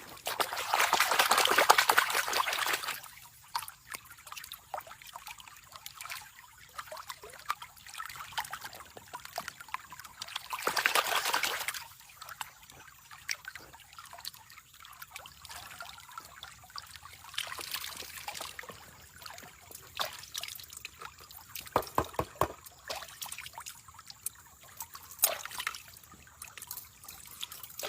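Water pouring and trickling as a gold pan of sand and gravel is washed, with two louder spells of pouring, about a second in and around eleven seconds in, and scattered light clicks in between.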